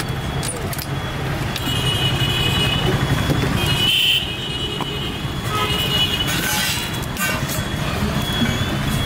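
Road traffic: a steady engine hum with vehicle horns sounding on and off, around two seconds in and again around five to seven seconds in.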